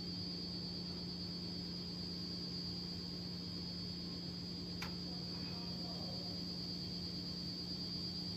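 Steady electrical hum with a faint high whine, and one sharp click about five seconds in.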